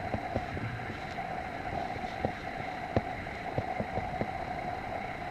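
A steady mechanical hum in the background, with scattered light clicks and rustles.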